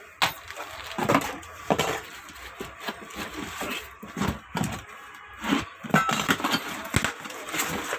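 Cardboard boxes being handled: a run of knocks, scrapes and rustles as small boxes are lifted out of and set back into a large cardboard carton.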